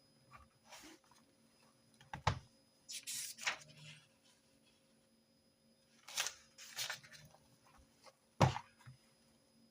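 Desk sounds of handwritten note-taking: a few short scratchy rustles on paper, and two sharp knocks of something set down on the desk, the louder one near the end.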